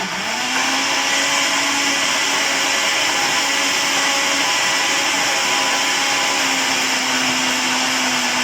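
Electric blender motor running at full speed, blitzing roasted vegetables and water into a sauce; its pitch settles within the first half-second, then it holds a steady whirr.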